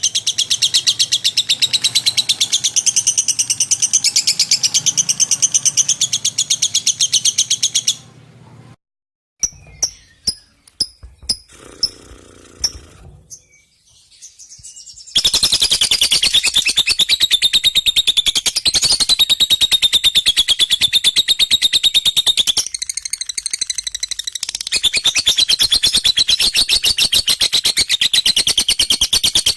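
Lovebird singing in long runs of rapid, high-pitched chattering chirps. About eight seconds in it breaks off to a few scattered chirps for several seconds, then resumes the dense chattering.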